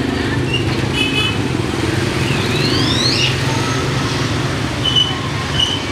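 Steady rumble of street traffic, with motorbike engines running past, and a few short high tones over it about a second in and near the end.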